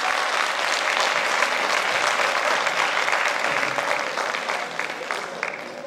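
Theatre audience applauding, a dense patter of many hands clapping that thins out near the end.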